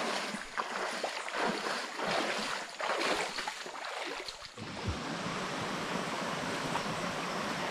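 Feet wading and splashing through a shallow creek, irregular sloshing steps in the water. After about four and a half seconds this gives way to a steady rush of flowing creek water.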